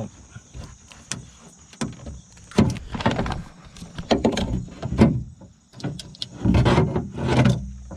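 Clicks, knocks and scraping rattles of the window regulator and motor parts being handled inside a car's rear door, in irregular bursts, loudest about three seconds in and again near the end. Crickets chirp steadily underneath.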